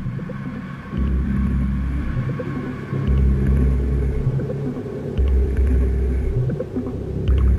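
Ambient electronic score: deep rumbling pulses, each about a second long and coming back about every two seconds, over a continuous low drone with faint held higher tones.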